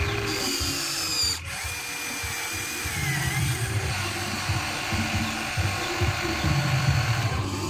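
Huina 1594 RC excavator's electric actuator motors whirring like a drill as the boom and bucket move, the whine wavering in pitch, over an irregular low rumbling.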